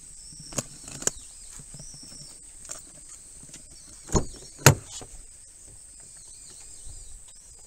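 Car door handle pulled and the door unlatched and swung open: two sharp clunks about half a second apart. A couple of light clicks come before them.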